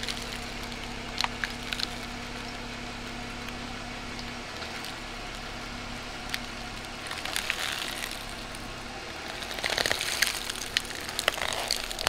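Big truck tire rolling slowly over stacked blister packs and crushing them, with bursts of crackling and sharp cracks of plastic and foil giving way, loudest from about two-thirds of the way in. A vehicle engine hums steadily underneath.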